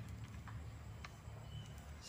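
Quiet outdoor background: a low steady rumble, one faint click about half a second in, and a short, faint high chirp near the end.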